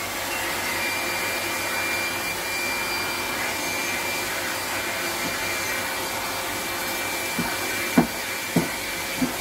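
Canister vacuum cleaner running steadily with a thin high whine, its floor nozzle being pushed over carpet. Near the end, three short knocks as the nozzle is bumped against the floor.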